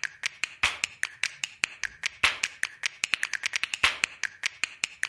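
A quick run of sharp clicks or taps, several a second at uneven spacing.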